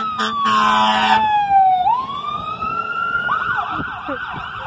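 Fire engine's air horn blaring, cut by a brief break, for the first second and a half. Its siren winds down and back up in a long wail, then switches to rapid up-and-down yelps in the last second or so.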